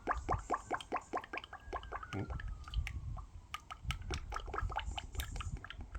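Engine oil glugging out of a 4-litre bottle into a filler funnel, in quick even glugs about five a second as air gulps back into the bottle; about two seconds in the glugs turn irregular and sparser.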